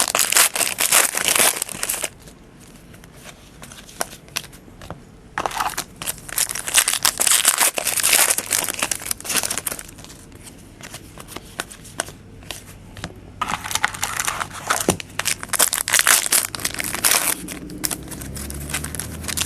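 Foil trading-card pack wrappers crinkling as they are handled and torn open, in three spells of crackling with quieter pauses between.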